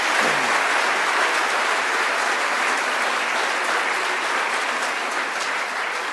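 Congregation applauding steadily, easing off a little near the end.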